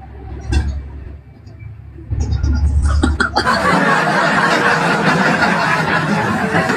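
Laughter: a loud, dense mass of laughing that sets in about three and a half seconds in and cuts off suddenly at the end, after a few clicks over a low rumble.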